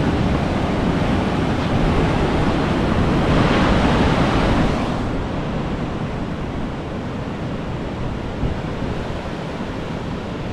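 Pacific surf breaking and washing onto the beach below: a steady rush that swells to its loudest about four seconds in, then eases. Wind buffets the microphone.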